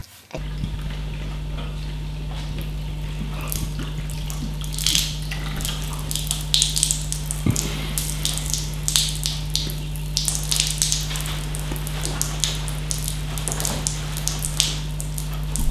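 Irregular dripping: scattered light drips and ticks over a steady low hum.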